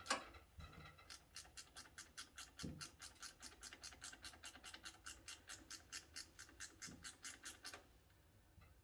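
Hand ratchet clicking steadily, about four to five clicks a second, while tightening an alternator mounting bolt, with a few dull knocks of the tool; the clicking stops near the end.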